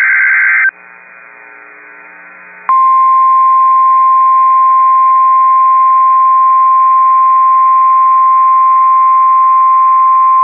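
NOAA Weather Radio Emergency Alert System tones: the loud buzzy tail of a SAME data burst, about two seconds of faint radio hiss, then about 2.7 s in the single steady warning alarm tone starts and holds.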